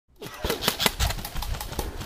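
Airsoft guns firing: an irregular string of sharp snaps and clicks with a few dull thuds underneath.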